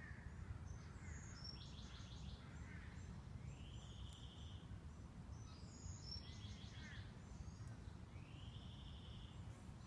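Faint birdsong over a low steady background noise. A songbird sings the same phrase twice, about five seconds apart; each phrase is a high downward note, then a quick run of notes, then a buzzy trill.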